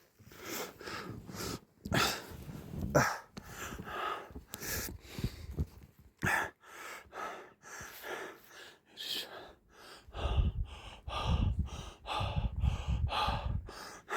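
A person breathing hard in short, irregular gasps. A low rumble joins in for the last few seconds.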